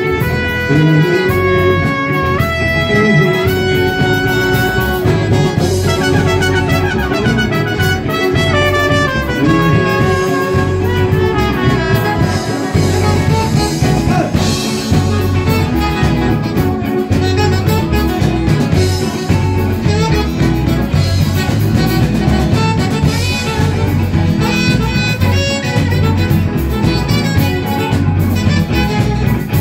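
Live band playing: a trumpet carries a stepping melody over electric guitar, bass and drum kit for the first several seconds, then the full band plays on with cymbals.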